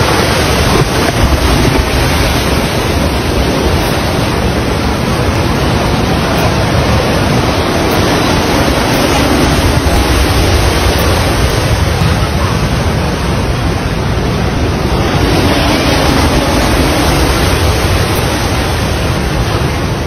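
A large wave of muddy water surges and breaks over a stone embankment, a continuous loud rush of crashing and churning water, mixed with wind buffeting the microphone.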